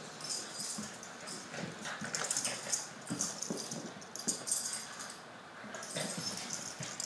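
Two small dogs play-wrestling on a hardwood floor: short dog grunts and whimpers mixed with irregular bouts of scuffling and scrabbling, coming in clusters about once a second.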